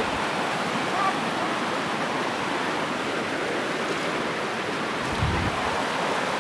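A swollen, muddy river rushing over rocks in rapids, a steady hiss of fast water. About five seconds in there is a brief low thump.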